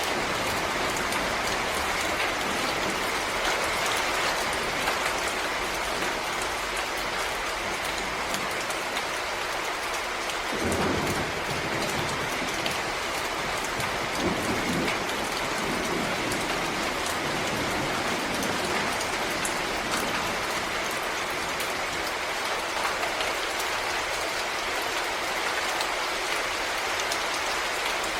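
Steady rain falling in a forest, an even hiss with individual drops ticking close by. Two brief low rumbles come up around the middle.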